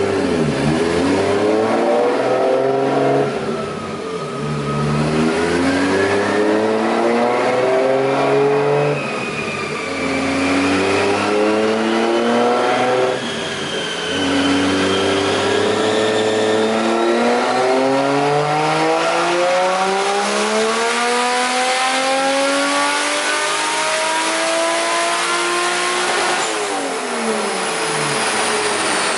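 Turbocharged 1JZ inline-six in a Lexus SC300 run on a chassis dyno. Revs climb and drop back about three times, then make one long full-throttle pull with the turbo whistling as the revs rise, and fall away near the end. This is a test pull after a little fuel was trimmed from a rich tune.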